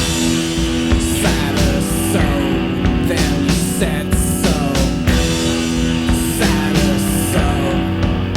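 Indie rock song: electric guitars holding sustained notes over a steady drum beat.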